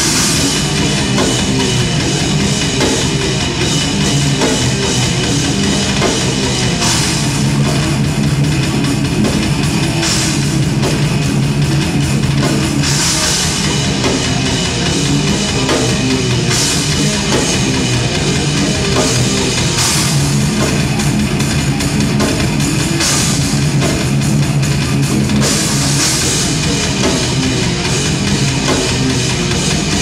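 Heavy metal band playing live: distorted electric guitars over a drum kit, with cymbal crashes every few seconds.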